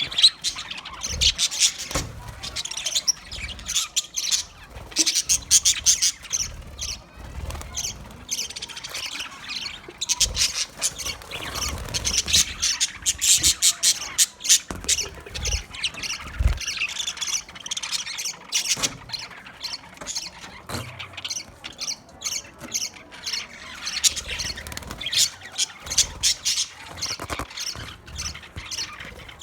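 Budgerigars chattering: a continuous run of rapid chirps, squawks and clicking warbles.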